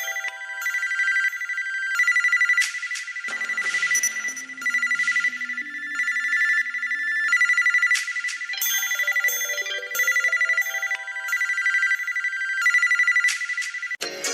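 LG VX5600 Accolade phone ringtone: a repeating electronic melody over a steady, pulsing high ringing tone, with a lower tune joining for a few seconds about a quarter of the way in. It cuts off just before the end and a different tune starts.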